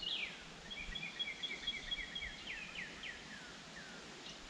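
Songbird singing: a run of clear whistled notes, each sliding downward, about three a second, with a held higher note early on, over a faint outdoor hiss.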